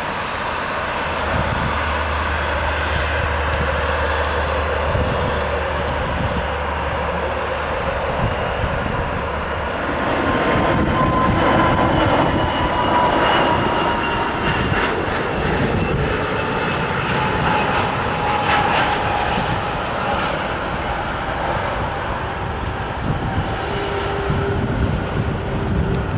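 Engine noise of landing airliners. First comes the low, steady drone of a Dash 8 Q400 turboprop's propellers. Then, from about ten seconds in, the louder whine of a four-engined Airbus A340's jet engines on approach takes over, its pitches slowly falling as it passes.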